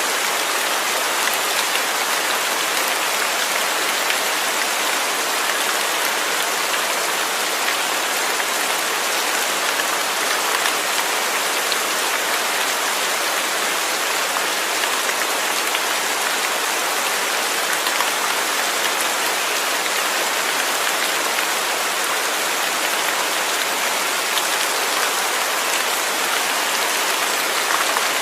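Steady rain falling, an even hiss of many drops with faint individual patters on a surface.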